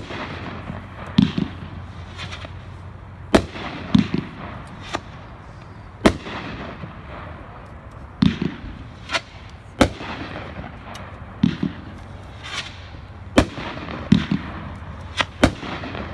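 A 500-gram consumer fireworks cake ('Vertigo') firing: dull launch thumps and sharp cracks of shells breaking, irregularly, one every second or two.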